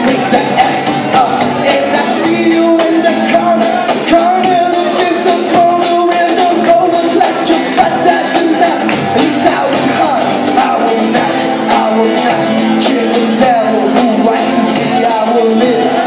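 Live band performing a song: a lead singer over guitar and cajón, with frequent percussive strokes. Heard from within the audience in a large hall.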